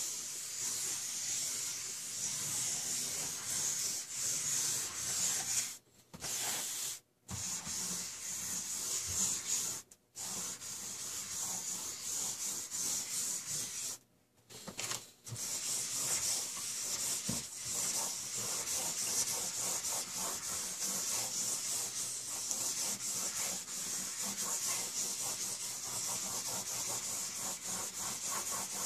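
Several felt-tip markers held between the fingers scratching and scribbling across a large sheet of paper: a continuous dry, hissy scratching, broken by a few brief pauses where the tips lift off the paper.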